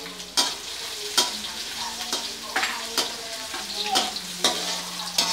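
Chopped onion and garlic sizzling in hot oil in a metal wok, with a metal spatula scraping and knocking against the pan as it is stirred, about twice a second.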